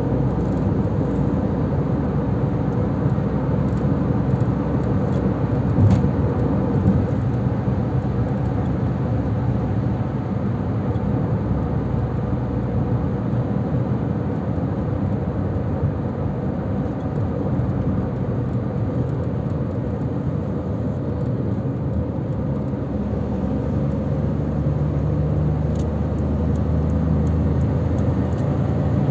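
Steady road noise of a car driving, with tyre and engine noise heard from inside the cabin; a low engine hum grows a little stronger near the end.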